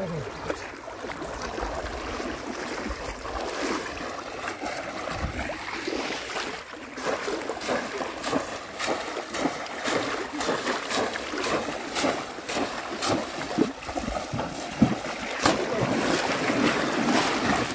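River water splashing and sloshing, with many short irregular splashes and knocks.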